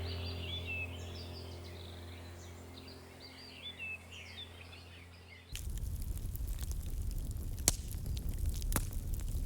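Birds chirping over quiet background music that fades out. About five and a half seconds in it cuts abruptly to steady crackling and hissing from a cooking fire, with a few sharp pops.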